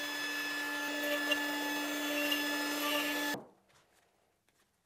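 An electric shop machine running steadily, a motor hum with hiss, that cuts off abruptly about three and a half seconds in. A few faint clicks follow.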